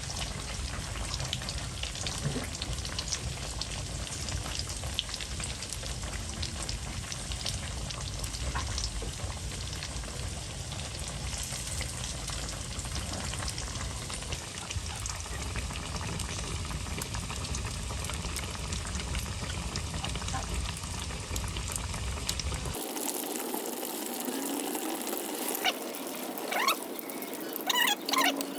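Food frying in hot oil: a steady sizzle with fine crackles. About 23 seconds in it cuts off, and near the end there are short, high chirping calls.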